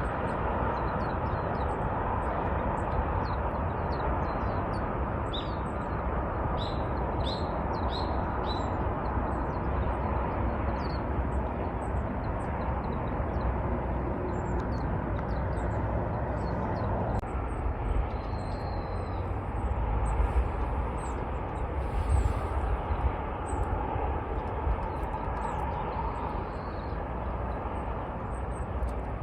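Small birds chirping in short high calls, with a quick run of rising chirps a few seconds in, over a steady low rumble that swells briefly twice near the end.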